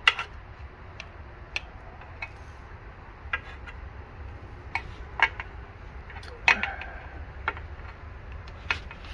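Irregular metal clicks and taps as a compression tester's hose fitting and gauge are handled against an outboard engine's cylinder head. About a dozen sharp clicks, the loudest about six and a half seconds in with a short ring, over a steady low hum.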